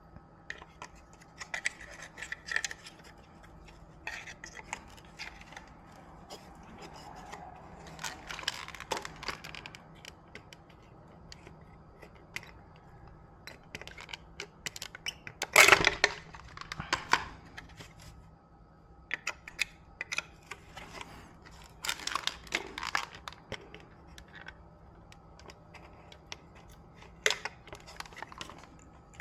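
Small tools and parts being handled on a repair bench: scattered clicks, taps and light metallic clinks, with one louder clatter about 16 seconds in, over a faint steady hum.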